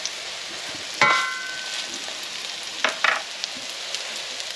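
Quark-and-potato patties sizzling steadily as they fry in fat in a nonstick pan. A sharp clink about a second in rings on briefly, and a shorter knock follows near three seconds.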